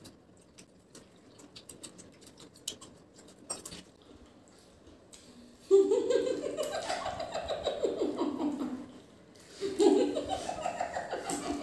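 Small clicks and rustles of eating and handling pizza, then two bouts of wordless, closed-mouth laughter: one about six seconds in lasting about three seconds, the other starting near the end.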